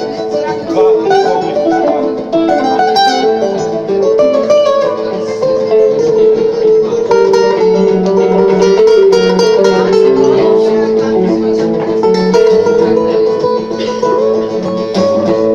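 Acoustic guitar trio playing a blues tune without vocals, with picked notes that change from moment to moment over sustained chords.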